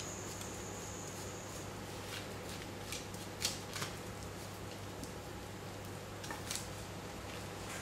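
A spoon spreading a sticky sesame and chia seed mixture over baking paper on a tray: a few faint scrapes and light clicks, the sharpest about three and a half seconds in, over a steady low hum.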